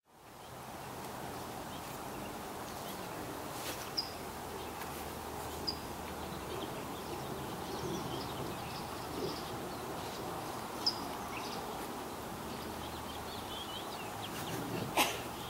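Steady outdoor background noise with short, high bird chirps every few seconds and a brief warbling call, then one sharp click near the end.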